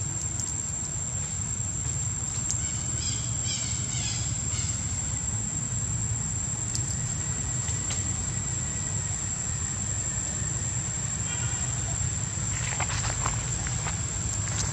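A steady, high-pitched insect drone, likely cicadas or crickets, over a steady low rumble. A few short calls come through around three to four seconds in and again near the end.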